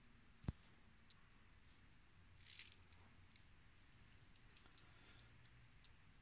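Near silence: room tone, with one sharp click about half a second in, a brief soft rustle a couple of seconds later and a few faint ticks.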